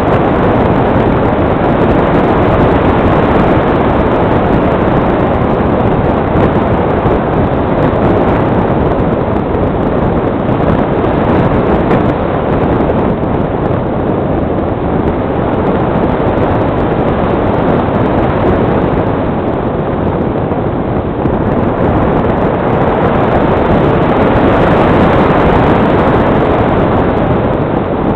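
Steady rush of airflow over the microphone of an onboard camera on a gliding radio-controlled Fox model glider. It is an even noise with no motor tone in it.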